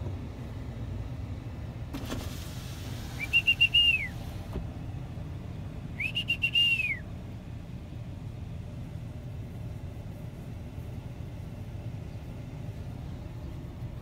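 A man whistles twice to call his horse. There is one loud whistle about three seconds in and a second about six seconds in, and each rises, holds with a fluttering warble, then falls away.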